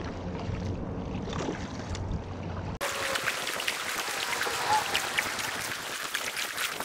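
Kayak paddle strokes with water splashing and dripping close to the microphone. About three seconds in, the sound changes abruptly to a brighter crackle of many small splashes and drips.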